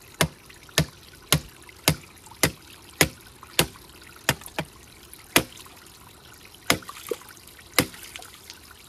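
A sickle striking repeatedly into the mud-choked pipe inlet of a spring catchment to knock loose the soil blocking the drinking-water pipe. About a dozen sharp knocks, roughly two a second at first and then more spaced out, over a faint trickle of water.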